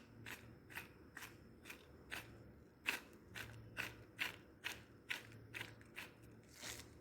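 Garlic powder container being shaken over a mixing bowl: a steady run of light clicks, about two or three a second.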